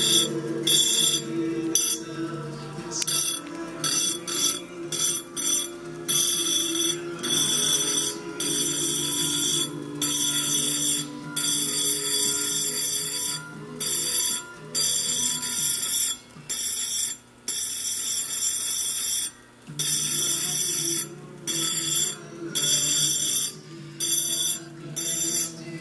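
Diamond engraving wheel grinding into cameo glass: a high-pitched, ringing screech that starts and stops over and over as the glass is pressed to the spinning wheel and lifted away. Background music plays underneath.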